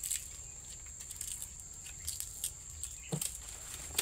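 Torch ginger stalks and leaves being picked and handled: rustling with about six scattered sharp snaps or clicks, one with a duller knock about three seconds in. A steady thin high-pitched tone runs behind.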